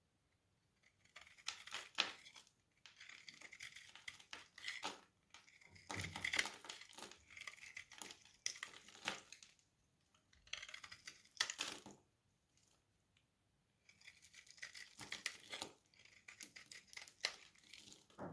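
Knife cutting through a bar of dry soap: crisp crunching and scraping strokes in repeated bursts, with short pauses between them.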